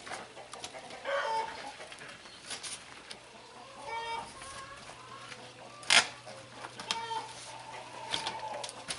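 Chickens clucking and calling on and off, short pitched calls every second or two. A single sharp knock about six seconds in stands out above them, as a wheelbarrow of wet concrete is tipped and emptied.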